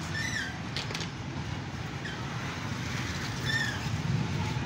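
A steady low mechanical drone, with a short high chirp near the start and another about three and a half seconds in.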